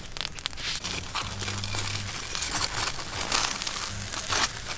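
Whole fish grilling on a wire rack over a charcoal fire: irregular crackling and popping.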